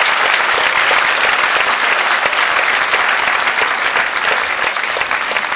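Large theatre audience applauding steadily, a dense wash of clapping that eases slightly toward the end.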